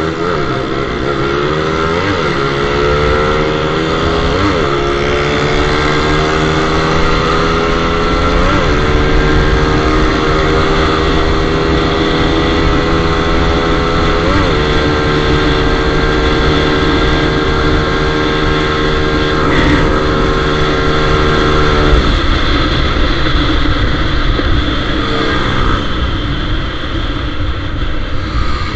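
Motorcycle engine accelerating hard up through the gears, its pitch climbing and dipping at each shift about 2, 4.5, 8.5 and 14.5 seconds in. It then holds a steady high speed and drops off as the throttle is closed about 22 seconds in.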